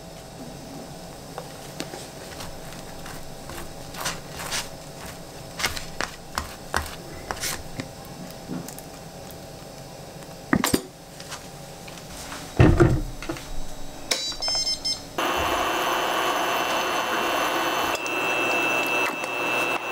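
Kitchen handling sounds: scattered taps and knocks of bread and a sauce bottle on a cutting board, with one heavier thump past the middle. About three quarters of the way through, a steady whirr with a high whine starts suddenly: an induction cooktop switched on under a frying pan.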